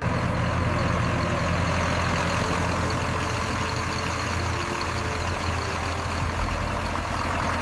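A heavy engine running steadily under a loud rushing hiss, with a deep, even hum. It starts abruptly and stays level.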